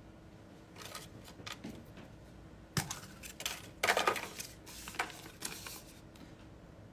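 Plastic capsule eggs being handled in a clear plastic tub and one opened, then a paper slip unfolded: a string of light plastic clicks and paper rustles, the sharpest click about three seconds in.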